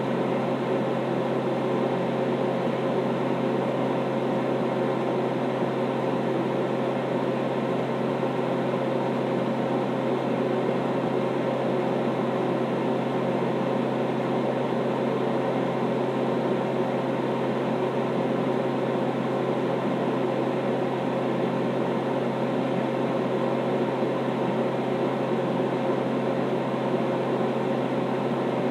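Steady appliance hum: a constant low drone under an even rushing noise, unchanging throughout.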